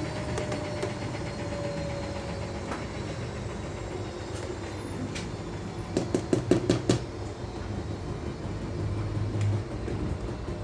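Steady low hum, with a quick run of about eight sharp clicks a little past the middle.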